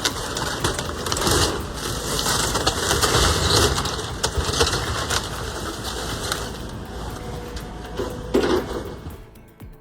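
A house being torn down by an excavator: dense crunching and crashing of breaking material and falling debris, loudest in the first few seconds with another crash near the end, then dying away.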